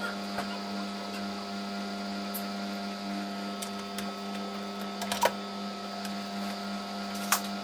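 Samsung Eco Bubble washing machine running a cotton wash: a steady motor hum, with a few sharp clicks about five and seven seconds in.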